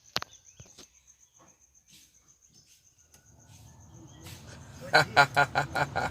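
A sharp click, then the Mitsubishi L200 Triton's cabin blower fan starting up on its re-soldered blower resistor, a steady whoosh of air that builds from about halfway through, with a few short loud sounds near the end.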